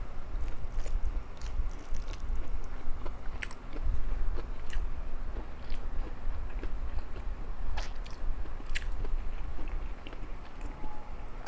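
A person chewing food close to the microphone, with scattered crisp crunches and mouth clicks.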